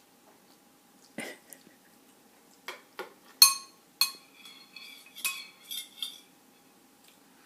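Spoon clinking against a soup bowl, about eight strikes over several seconds, the louder ones ringing briefly; the loudest comes about three and a half seconds in.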